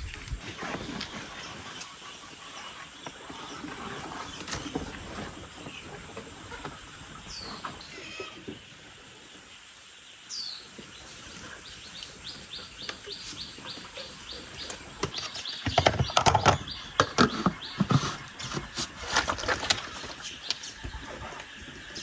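Young chicks peeping in short high chirps. In the second half, a rapid run of high pips is followed by several seconds of loud clattering knocks.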